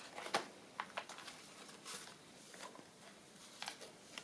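Faint, scattered rustles and light taps of small paper pieces being handled and sorted in a box.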